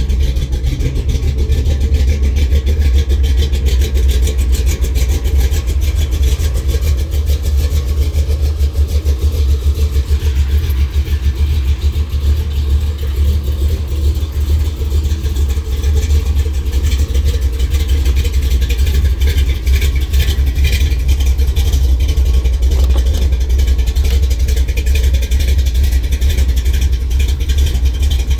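Chrysler 340 small-block V8 in a Dodge D-150 pickup idling cold, with the uneven lope of an aggressive camshaft in its exhaust note. It runs steadily, with no revving.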